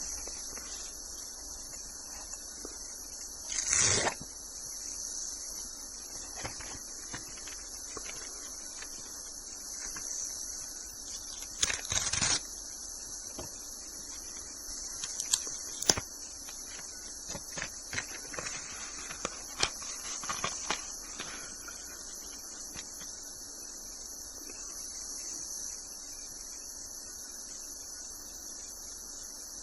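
Steady high insect chirring, like a cricket chorus, with two short handling rustles about 4 and 12 seconds in and scattered light clicks a little later.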